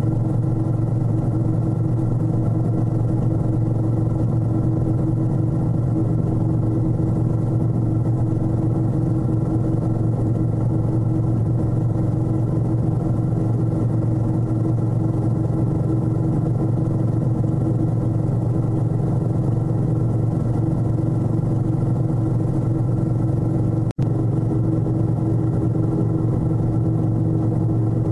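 Robinson R44 helicopter hovering low, its rotor and piston engine making a steady, loud drone with a strong low hum. The sound drops out for an instant once near the end.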